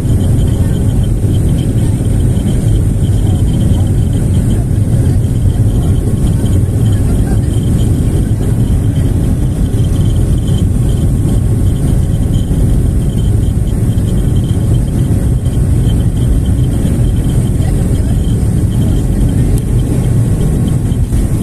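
Airliner cabin noise: a steady, loud rumble of the jet engines and the plane rolling along the ground, with a thin high whine above it.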